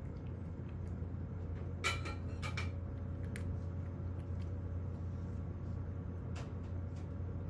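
A cat eating dry kibble from a bowl: a few sharp crunches and clicks, clustered around two to three seconds in and once more later, over a steady low hum.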